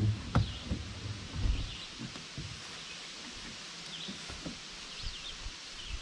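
Small birds chirping in short repeated calls, with a few dull thumps and a sharp knock in the first second and a half as a heavy plastic kayak is slid down off the car roof.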